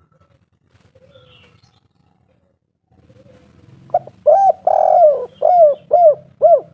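Spotted dove (tekukur) cooing after a few seconds of near-quiet. From about four seconds in it gives one phrase of six arched coos: two short, one longer drawn-out note in the middle, and three quick coos at the end, the 'kuk 3' ending.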